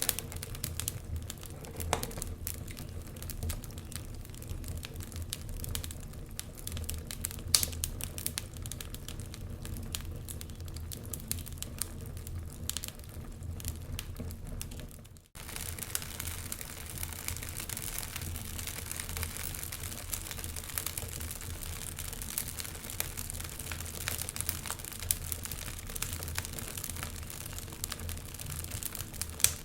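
Wood fire crackling, with irregular sharp pops and snaps over a low rumble. The sound cuts out for a moment about halfway and comes back with more hiss.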